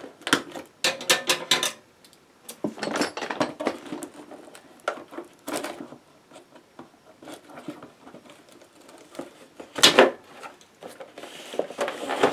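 Scissors snipping and clicking as they cut the packaging on a cardboard box, with bursts of cardboard handling and crackling. One loud sharp knock about ten seconds in.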